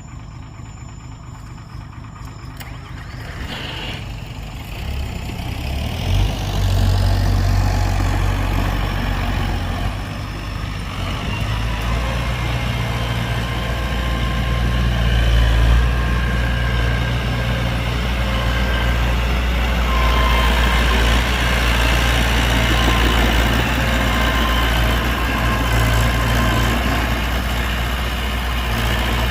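Heavy diesel engine of a dump truck or bulldozer, growing louder over the first several seconds, then running steadily with a deep, even hum.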